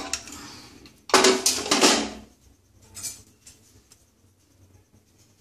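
Metal clatter of an aluminium pressure cooker being handled, starting sharply about a second in and lasting about a second, then a few faint ticks of a spoon against the pot.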